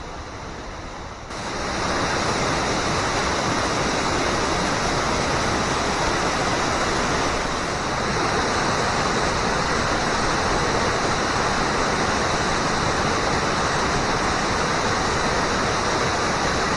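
Waterfall: a steady rush of falling water that gets abruptly louder about a second in.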